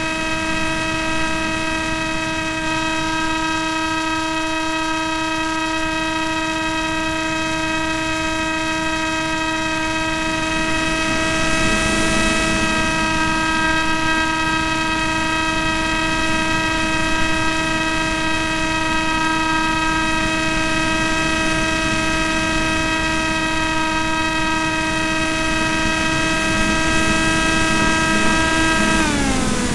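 The electric motor and propeller of an AXN Floater RC plane run at steady throttle: a constant high whine with even overtones over a rush of air noise, heard from the onboard camera. Near the end the throttle is pulled back and the whine slides down in pitch.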